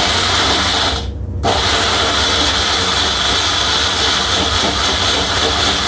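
Compact personal blender motor running, grinding onion, bell pepper and milk into a liquid with a steady high whir. It cuts out briefly about a second in, then starts again.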